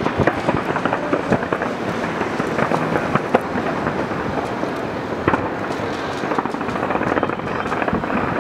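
Large fireworks display heard from a distance: a continuous rumble of many shells bursting, with sharp cracks scattered throughout that get busier and louder over the last couple of seconds.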